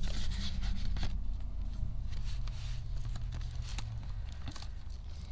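Paper banknotes being handled: bills rubbing and sliding as they are counted and tucked into a plastic binder pouch, with a few soft clicks, over a steady low hum.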